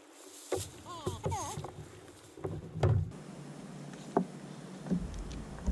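Clear plastic bag crinkling as a freshly caught bigfin reef squid is dropped into it, followed by several sharp knocks of handling on a plastic sit-on-top kayak as the fishing rod is picked back up. The loudest knock comes about three seconds in.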